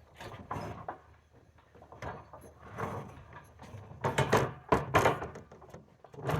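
Scaffolding parts knocking, scraping and clattering as the scaffold is put together, with a cluster of louder knocks about four to five seconds in.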